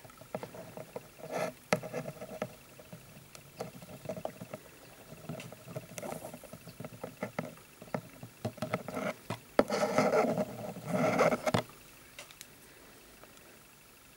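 Metal tweezers tapping and scraping inside a plastic terrarium and through its soil substrate, in irregular clicks and scrapes, with two longer, louder scrapes about ten and eleven seconds in.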